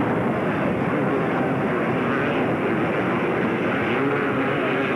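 Several racing ATV engines buzzing together, their pitch rising and falling as the riders open and close the throttle.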